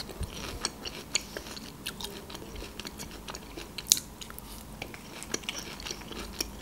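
Close-miked eating sounds: chewing and many short, wet mouth clicks as pickled ginger is eaten from chopsticks, with one sharper click about four seconds in.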